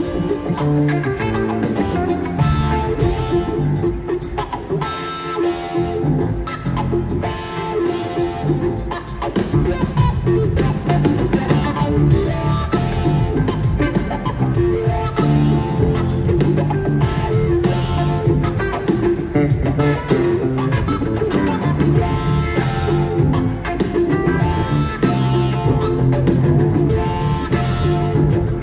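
Live rock band playing without a break: electric guitar over drums.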